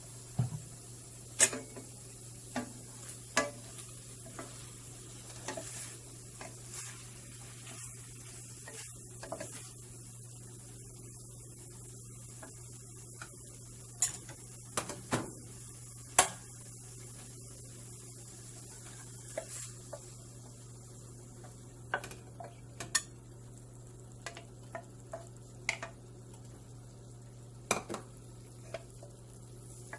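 Wooden spatula knocking and scraping against a stainless-steel pan in irregular clatters while ground pork and bitter gourd are stir-fried, over faint sizzling and a steady low hum.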